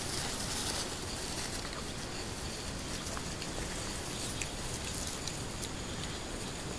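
Dogs running and chasing on grass: scattered soft footfalls and a few faint clicks over a steady outdoor hiss.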